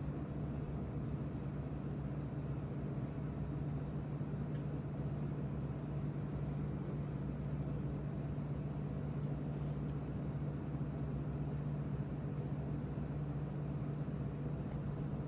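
A steady low hum with an even background noise, broken only by a few faint high ticks about ten seconds in.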